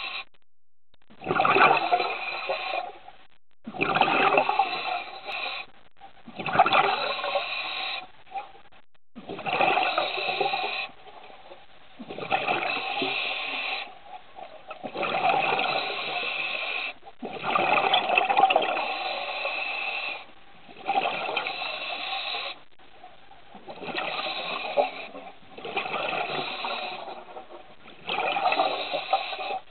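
Scuba diver breathing through a regulator underwater: a rushing burst of exhaled bubbles about every two to three seconds, each lasting around two seconds, with short quieter gaps for the in-breath.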